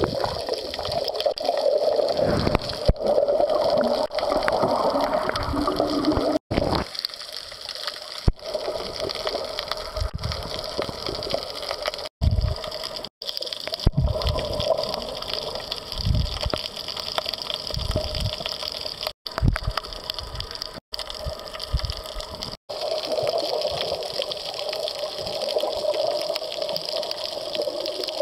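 Muffled rushing and gurgling of water heard through a camera held underwater, with occasional low thumps. The sound cuts out for a split second several times.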